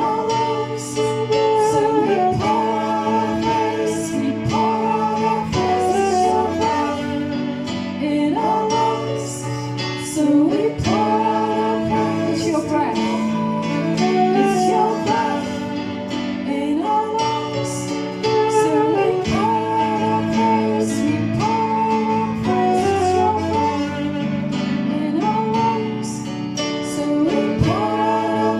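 Worship band music with guitar: a gliding melody line over steady held chords, played without a break.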